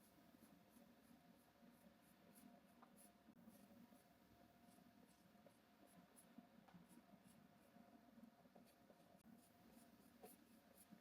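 Faint short strokes on a canvas, several a second, over a low steady hum.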